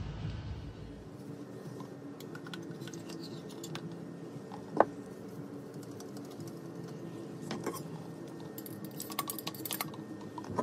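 Scattered light clicks and taps, like small hard objects being handled, with one sharp click about five seconds in and a quick run of clicks near the end, over a steady low hum. A low rumble cuts off about a second in.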